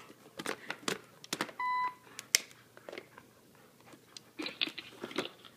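A talking story toy gives one short electronic beep about a second and a half in, its signal that it is now recording an answer. Around it come irregular clicks and crackles of the toy's stiff plastic packaging being mouthed and bitten by a dog.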